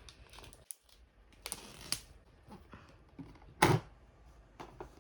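Clicks and knocks from an art case being handled, with one louder knock about three and a half seconds in.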